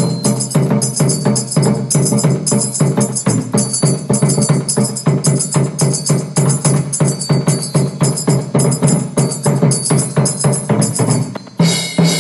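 Instrumental music with a quick, steady percussion beat, about four strikes a second, over a low sustained bass part; the music shifts to a new section near the end.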